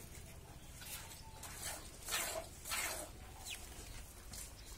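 Hand-milking a Murrah buffalo: short hissing squirts of milk hitting the inside of a plastic bucket, roughly every half second, loudest about two and three seconds in.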